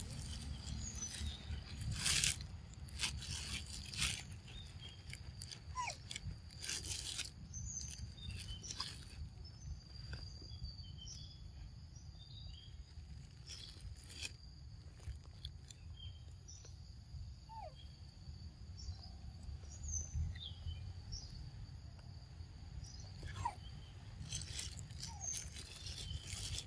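A macaque biting and chewing ripe mango flesh: sharp, wet bites and crunches come at irregular intervals, thickest in the first several seconds and again near the end. Beneath them run a steady high hum and a few short chirps.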